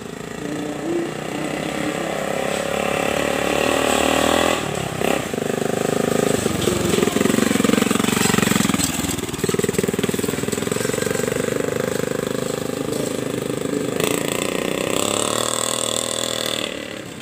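Suzuki Shogun 110 motorcycle engine running as the bike is ridden past. It grows louder as it approaches, its pitch dips as it passes close by about eight seconds in, then it runs on steadily and falls away just before the end.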